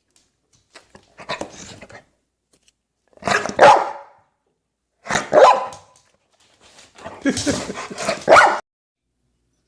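A dog barking in four bouts, the last one longer than the others.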